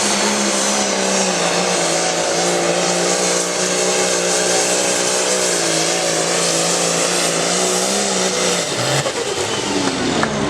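International farm tractor's diesel engine running at full throttle under load, pulling the sled, with a steady high pitch that wavers slightly. About eight and a half seconds in the engine is throttled back and the pitch falls away.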